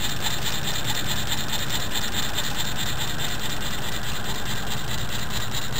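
Homemade spirit-lamp-heated Stirling engine running steadily, its crank, two connecting rods and aluminium flywheel turning with an even, rhythmic mechanical clatter.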